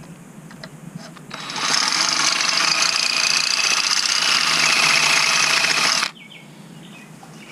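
Cordless drill, switched to drill mode, boring a hole through a roof rail to pass the light bar wiring. It starts a little over a second in, runs steadily for about four and a half seconds, and stops abruptly.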